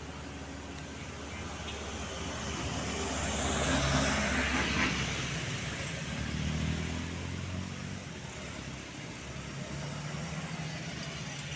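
Road traffic: a vehicle passes close by, swelling to its loudest about four seconds in and fading, over a steady low engine rumble.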